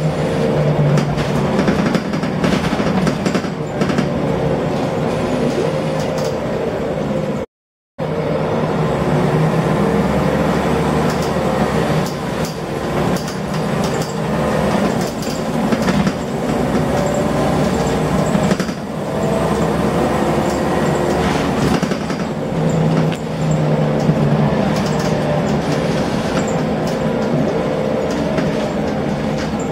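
Interior sound of a Scania L94UB Wright Solar single-deck bus under way: its engine running under load through the ZF automatic gearbox, its pitch rising and falling, with rattles from the bodywork. The engine sounds a bit rough. The sound cuts out completely for about half a second roughly a quarter of the way in.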